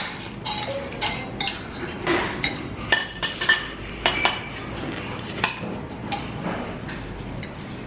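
Dishes and cutlery clinking and clattering: irregular sharp clinks with short ringing tones, several a second, thinning out near the end.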